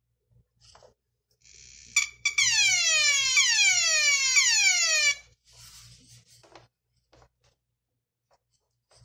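Electronic alarm-like tones: a steady high tone starts about a second and a half in, then turns into a rapid run of overlapping falling pitch sweeps that stops suddenly after about three seconds.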